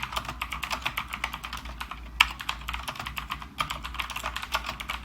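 Fast typing on a Rakk Kimat XT.LE mechanical keyboard with Outemu blue switches: a dense, continuous stream of loud, clicky keystrokes, with one harder stroke a little over two seconds in.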